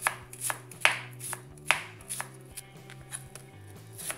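Kitchen knife slicing an onion on a plastic cutting board: the blade taps the board about twice a second. The taps are sharper in the first couple of seconds and softer after that.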